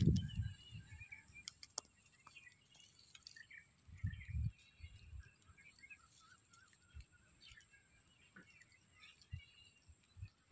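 Faint, scattered bird chirps in the background, with a few soft low bumps; the strongest bump comes about four seconds in.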